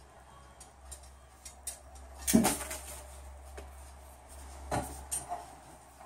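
Scattered light knocks and clatter of household objects being handled or bumped, with a louder knock about two and a half seconds in and another near five seconds.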